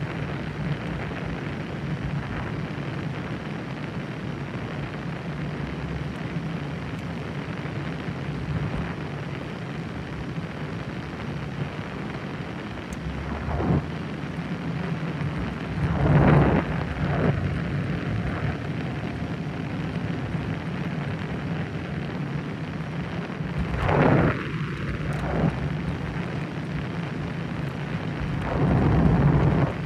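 Car cabin noise while driving: a steady low rumble of engine and tyres on the road, with a few louder rushing swells partway through and near the end.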